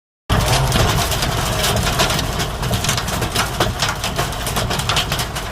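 Intense hail pelting down: a dense, irregular clatter of many hailstone impacts over a steady low rumble.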